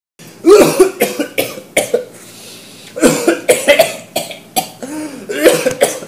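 A man coughing repeatedly in fits: a run of harsh coughs, a short pause, then two more bouts of coughing.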